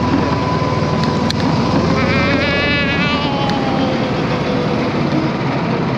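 Go-kart engine running steadily at speed, its whine drifting slightly in pitch, under heavy wind noise. A brief warbling high sound comes about two seconds in.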